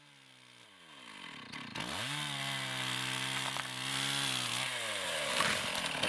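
Two-stroke chainsaw felling a pine tree: the engine note drops over the first couple of seconds, then revs up about two seconds in and holds at full speed as it cuts through the trunk, before falling back toward idle about five seconds in.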